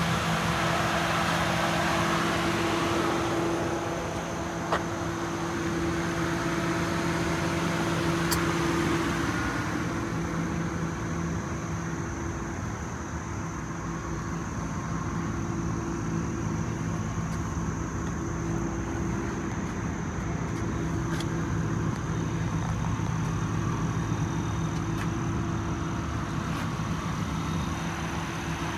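1997 Lincoln Town Car's 4.6-litre V8 idling, a steady even hum that eases off a little after about ten seconds, with a couple of faint clicks.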